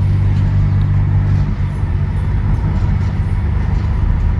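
Car in motion: a steady low engine and road drone.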